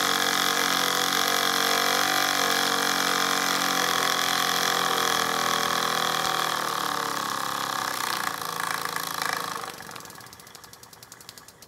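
Miniature brass steam engine running on steam from a small boiler, giving a steady mechanical hum that slowly drops in pitch as it slows. The sound falls away about ten seconds in, leaving only faint quick ticking.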